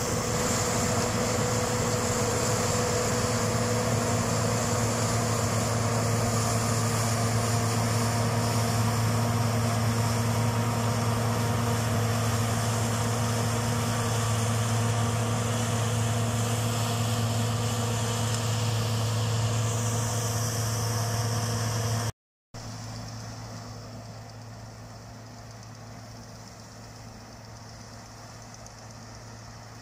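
Claas Tucano combine harvester running at working speed as it harvests rapeseed: a loud, steady engine drone with a hum of threshing machinery. About 22 seconds in it drops sharply to a much fainter steady drone, heard from farther off.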